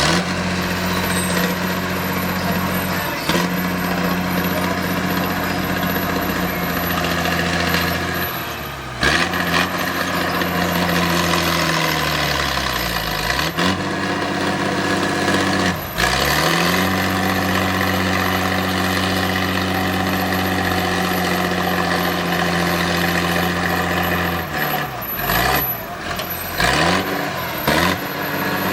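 Heavy diesel engine of earthmoving machinery running under load. Its pitch sinks steadily through the middle, then climbs back and holds, with several abrupt breaks.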